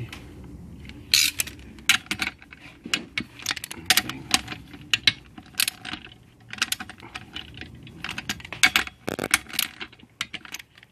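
Ratcheting torque wrench clicking in short irregular runs, with metal clinks of the wrench on the bolts, as bolts on an aluminium transmission case are tightened to torque.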